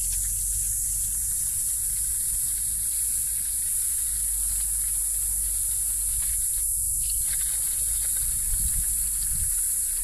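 Liquid poured from a small plastic bucket through a plastic funnel into a 1.5-litre plastic water bottle, under a steady high hiss.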